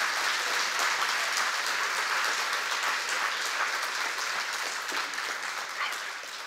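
Audience applauding at the close of a talk, a dense patter of many hands clapping that slowly fades toward the end.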